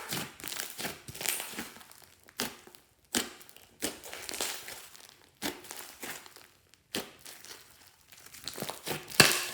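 Slime being squeezed and kneaded by hand, giving irregular bursts of wet squishing and crackling. The loudest burst comes near the end.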